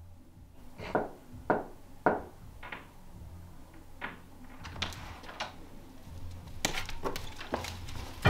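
Footsteps on a wooden floor, a short sharp step roughly every half second, coming up to an interior door, which is opened near the end.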